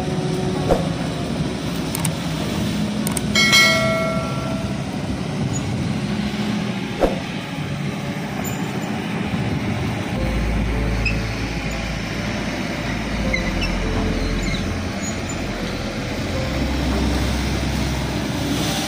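Kobelco SK260 hydraulic excavator's diesel engine running steadily as the machine works, with a brief high squeal about three and a half seconds in and a couple of sharp knocks. A deeper low rumble comes in about halfway through as it pushes against an oil palm.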